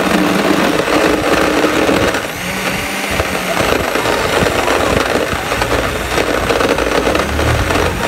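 Countertop blender motor running steadily, blending mango, condensed milk and crushed ice into a shake. The sound dips and shifts briefly about two seconds in, then runs on steady.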